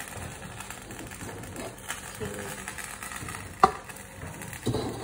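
Wok of chicken garang asem simmering on a gas stove: a steady bubbling hiss with scattered light ticks, and one sharp click about three and a half seconds in as the ladle is moved in the pot.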